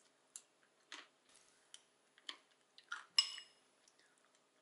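Metal spoon clinking and scraping against a ceramic bowl: several light, scattered clinks, the loudest a ringing clink about three seconds in.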